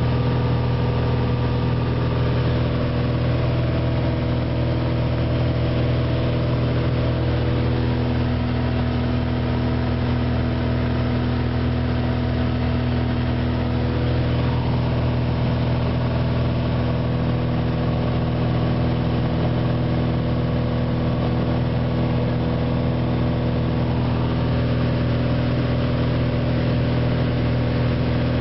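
Light aircraft's engine and propeller heard inside the cabin in cruise: a steady, even drone that does not change in pitch or level.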